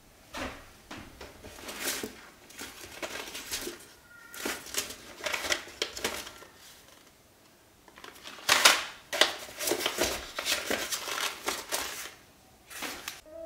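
Paper seed packets rustling and flicking against one another as they are leafed through in a cardboard box. The sound comes in short irregular bursts, and the loudest comes a little past the middle.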